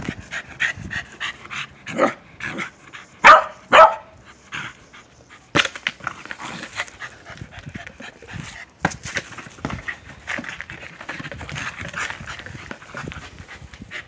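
Welsh corgi panting, with two short loud barks close together about three seconds in. A sharp knock follows a couple of seconds later.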